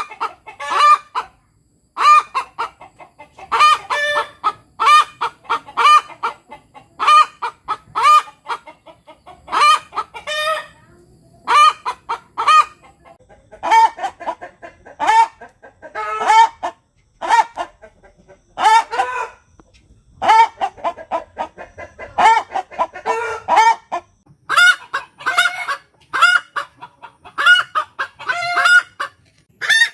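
Free-range village hen (ayam kampung) cackling 'tok tok petok': runs of short, sharp, high clucks, each run ending on a drawn-out note, repeated again and again. This loud cackle is the call hens give after laying an egg, or when something strange alarms them.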